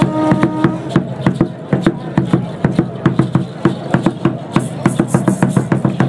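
Large wooden barrel drum beaten with two sticks in a fast, steady beat.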